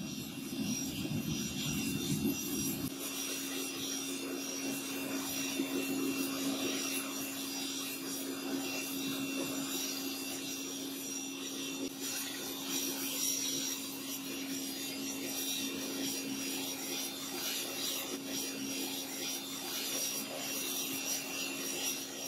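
Homemade metal-melting furnace running with a steady rushing roar and a steady hum. A deeper rumble under it stops suddenly about three seconds in.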